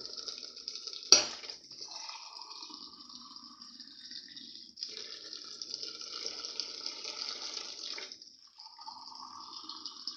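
Water running into a cooking pot of beans and green grams to top it up. The flow stops and starts twice. There is one sharp knock about a second in.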